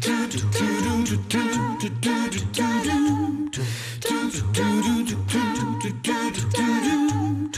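The show's sung theme music: a sung melody over a steadily pulsing bass line.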